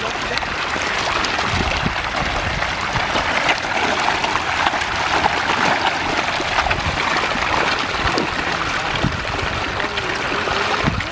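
Continuous churning and splashing water, thick with small slaps and spatters, from a mass of hybrid magur catfish thrashing at the surface while feeding.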